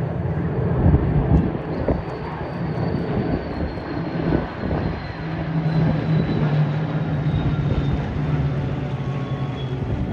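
Display aircraft flying past overhead: a steady low engine drone, with a faint high whine that slowly falls in pitch, over gusty wind noise.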